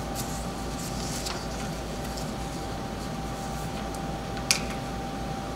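Room tone in a meeting room: a steady low hum with a faint steady tone above it. There is one sharp click about four and a half seconds in.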